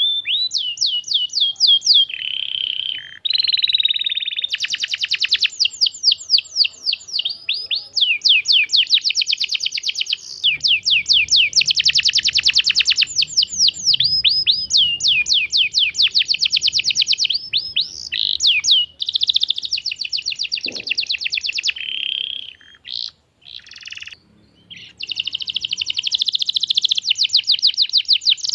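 Young canary singing a long, fast song: rapid trills of quickly repeated falling notes, run after run, with a few short breaks in the last third. It is a lure song for prompting other canaries to sing.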